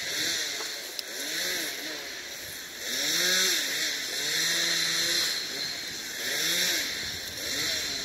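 A two-stroke chainsaw revving up and falling back again and again, every second or two, with one longer steady hold about halfway through.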